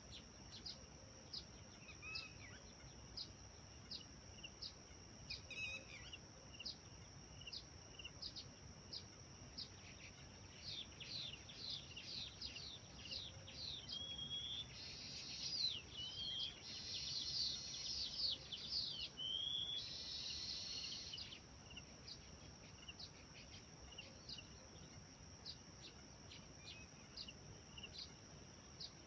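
Birds singing: one bird repeats a short, high, falling chirp about twice a second, and about a third of the way in other birds join with a busier stretch of song and trills that fades about two-thirds of the way through. A steady high whine runs underneath.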